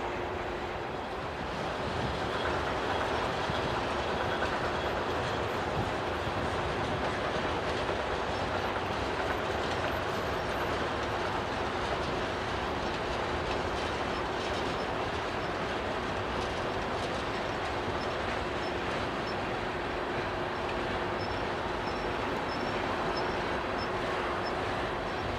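CSX manifest freight train's covered hoppers and tank cars rolling past: a steady rumble of steel wheels on the rails with a continuous hum underneath.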